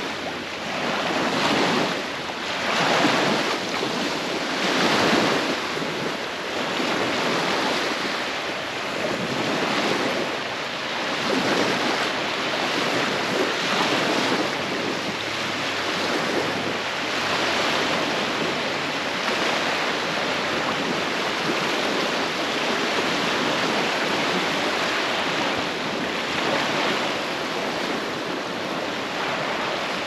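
Small waves lapping and washing onto a sandy shore, with a light breeze on the microphone. The wash swells in several surges over the first few seconds, then runs more evenly.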